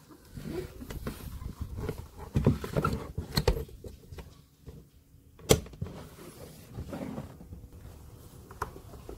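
Rustling and knocking of hands working at a car door panel, feeding speaker wiring through the plastic sheet behind the trim as the door trim goes back on, with one sharp click about five and a half seconds in.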